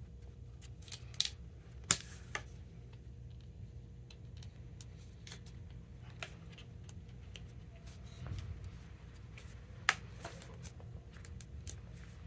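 An awl working plastic grommets into a Head Radical tennis racquet frame: scattered light clicks and scrapes, with three sharper clicks, two within the first two seconds and one near ten seconds, over a steady low hum.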